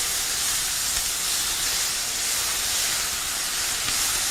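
Onions and tomatoes sizzling steadily in hot olive oil in a sauté pan.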